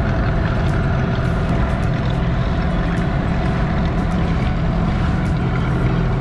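Small outboard motor driving an inflatable dinghy, running steadily at cruising speed, with constant water and wind noise.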